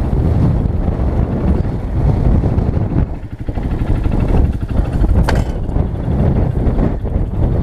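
Wind buffeting a helmet camera's microphone: a loud, uneven low rumble and rush that drops briefly about three seconds in, with a single faint click about five seconds in.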